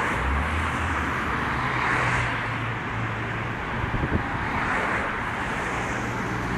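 Street traffic: cars driving past one after another, the tyre and engine noise swelling and fading twice, about two and five seconds in, over a low steady hum.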